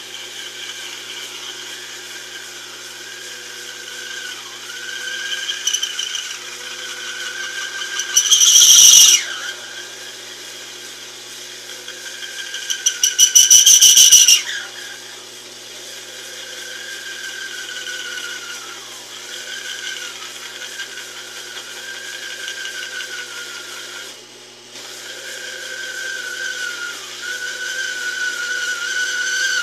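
Taig lathe parting off a mild steel bar with a spring parting-off tool, the spindle pulled down to about 200 rpm by the cut: a steady, wavering whine from the cut and drive. Two loud screeching bursts come about eight seconds in and again at about thirteen seconds, the second with a fast rattle. The uploader puts the struggle down to the small lathe not being up to the cut, not to the tool.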